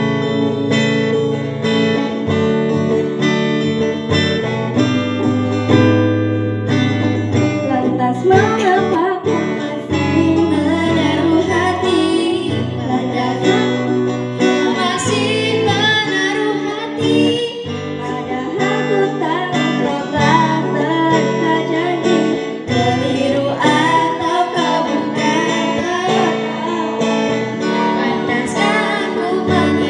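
Acoustic guitar playing chords, with a voice singing the melody over it from about eight seconds in.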